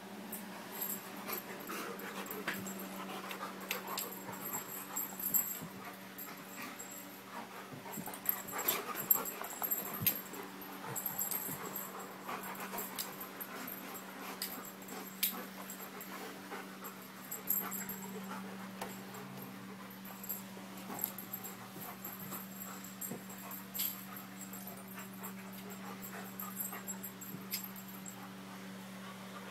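Two German Shepherds play-fighting at close range: panting, with many short sharp clicks and scuffles scattered through.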